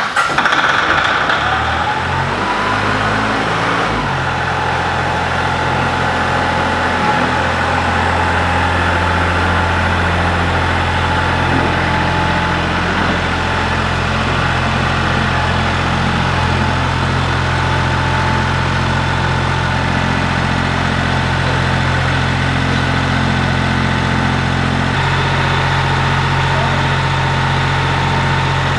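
Ford 1710 compact tractor's three-cylinder diesel engine catching, its speed climbing in steps over the first few seconds, then running steadily.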